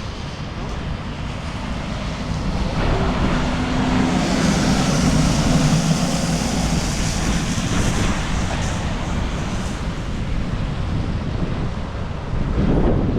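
Storm wind buffeting the microphone with a steady low rumble, while a vehicle passes in the middle, its engine hum and a hiss of tyres on the wet road swelling and fading.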